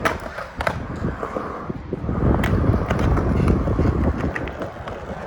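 Skateboard rolling on pavement, the wheels' rumble loudest from about two seconds in, with a few sharp clacks of the board: a trick attempt that just misses.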